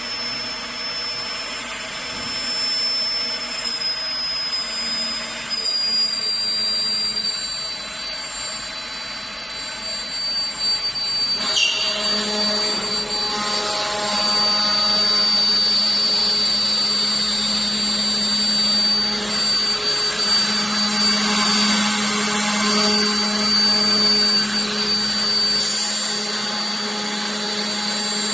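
CNC router for wood cutting, its spindle running with a steady high whine over a continuous rushing machine noise. About halfway through, the sound changes sharply and becomes louder and rougher with a low hum, as the cutter works the material.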